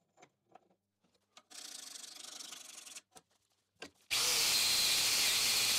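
Light handling clicks and a short scrape, then about four seconds in a power tool fitted with a wire wheel starts abruptly and runs steadily, deburring the engraved steel branding iron.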